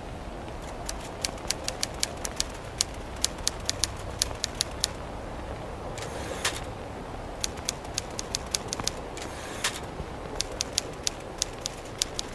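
Typewriter keys clacking in quick, irregular runs, with two longer, noisier strokes about six and nine and a half seconds in, over a steady low hiss and rumble.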